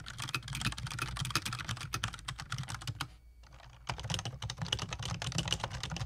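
Rapid typing on a black HHKB keyboard with Topre switches, which have a deeper "thock" sound, and on a tenkeyless mechanical keyboard with Cherry MX Brown switches. The typing comes in two runs of key strokes with a short pause about three seconds in.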